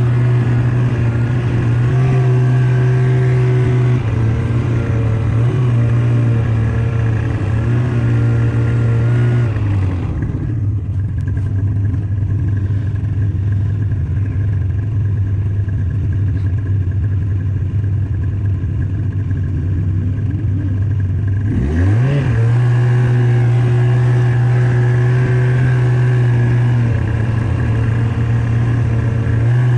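Snowmobile engine running at a steady pace. About ten seconds in it eases off for roughly eleven seconds, then revs back up with a rising whine and holds steady again.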